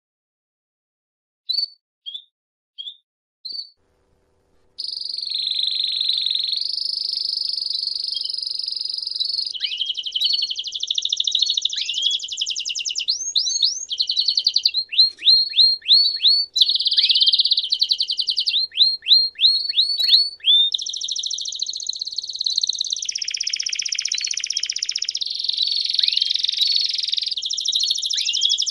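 Domestic canary singing: a few short separate notes, then from about five seconds in an unbroken song of long rolling trills, broken in the middle by runs of quick downward-sweeping notes.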